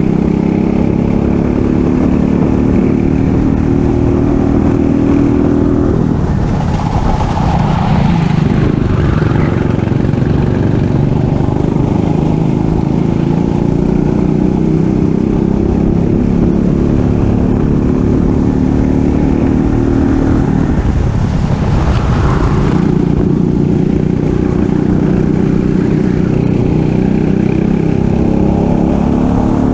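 Racing kart engine under full throttle, its pitch climbing slowly as it gathers speed. Twice, about six seconds in and again about twenty-one seconds in, the engine note drops sharply as the throttle is lifted for a corner, then climbs again.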